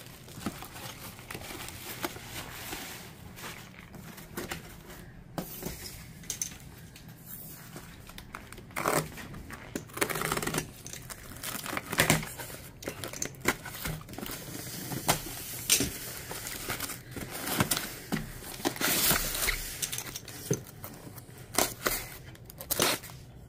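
Packing being handled: bubble wrap crinkling as an item is unwrapped, then a utility knife cutting the tape on a cardboard box and the flaps being torn open, with irregular sharp rustles and clicks.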